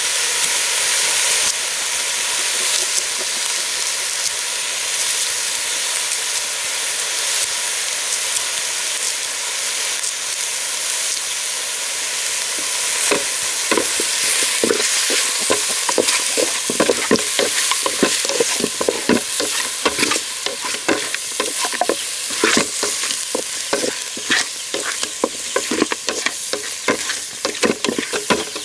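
Food sizzling as it fries in a pan, a steady hiss. About halfway through come many quick knocks of stirring against the pan.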